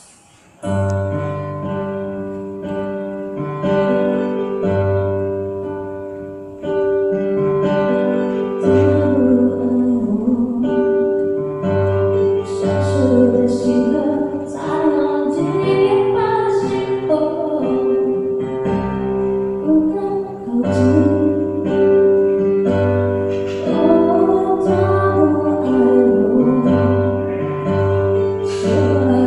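A song starting about half a second in: a voice singing over plucked guitar and bass, with a long steady note held underneath.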